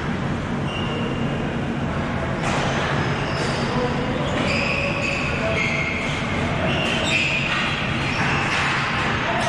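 Ball hockey play: short high squeaks of players' shoes on the playing surface and a few sharp stick or ball clacks, over a steady low rumble.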